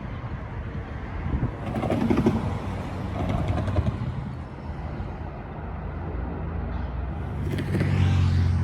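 Motor vehicle noise: a steady low rumble, with a low engine hum growing louder near the end.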